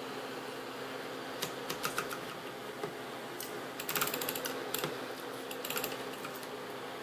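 USB mini desk fan running with a steady hum, while a series of sharp plastic clicks sounds over it, densest in a quick rattle about four seconds in: the fan head being moved through its click-stop tilt joint.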